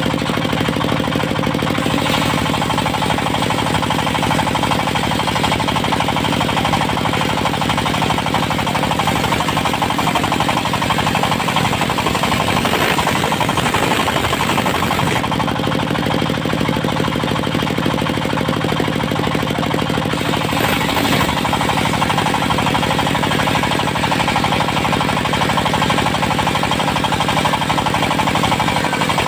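Engine of a portable circular-saw mill running steadily with a fast, even pulse.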